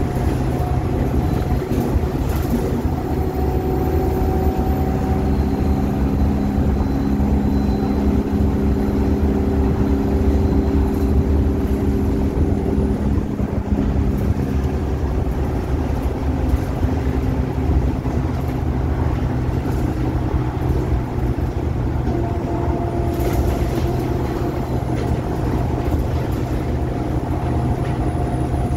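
ADL Enviro 200 single-deck bus under way: a steady diesel engine drone with whining tones from the drivetrain that hold for several seconds and then fade, over road noise.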